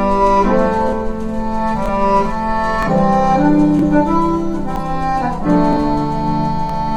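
Instrumental background music: held, sustained chords that shift every second or so, with no voice.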